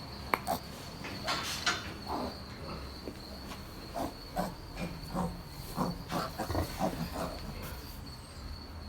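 Pigs giving a string of short grunts, over the steady high trill of crickets.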